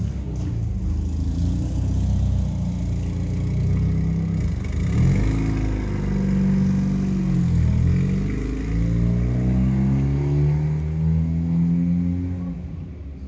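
A motor vehicle engine running nearby, its pitch falling and rising several times as the revs change, fading away near the end.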